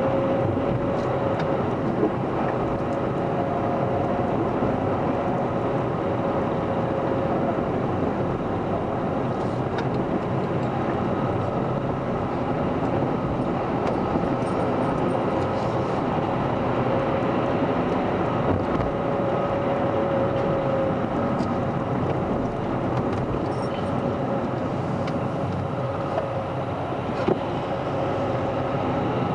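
A car's engine and road noise heard from inside the cabin while driving slowly: a steady hum with a thin whine running through it and a few faint clicks.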